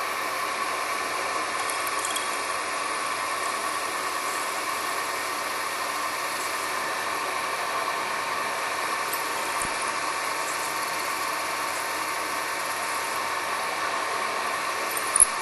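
Milling machine spindle running steadily while a drill bit is fed slowly through a plastic valve seat to drill an airgun's air transfer port, with a steady whine. A brief click near the end.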